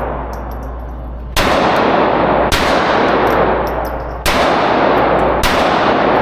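Four handgun shots about a second apart, each ringing on for a second or more. Light metallic clinks of ejected casings landing come between the shots.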